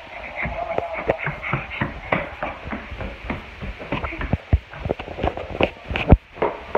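Quick, irregular knocks and thumps of running footsteps and a phone being jostled in the hand, with the hardest thump about six seconds in. The last steps fall on wooden stairs.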